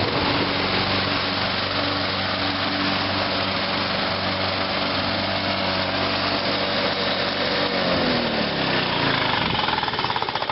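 Three walk-behind lawnmower engines running together, loud. About eight seconds in, one of them is switched off and its pitch falls away as it winds down.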